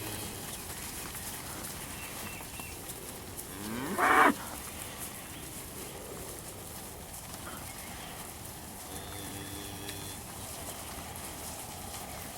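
Beef steers mooing: one short, loud bawl about four seconds in, then a fainter, lower moo near the end.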